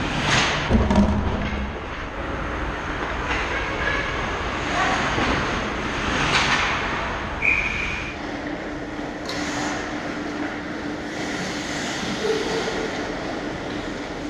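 Ice hockey play around the goal: skate blades scraping and carving the ice, with sticks, puck and bodies knocking, over the steady din of an indoor rink. The loudest knock comes about a second in.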